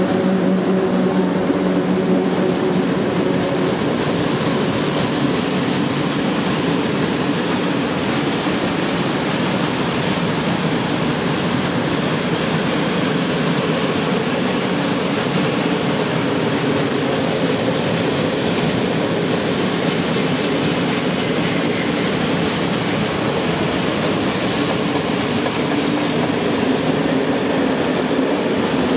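Freight train of open wagons rolling past at speed: a steady, loud rush and clatter of wheels on the rails. The hum of the electric locomotive fades over the first few seconds.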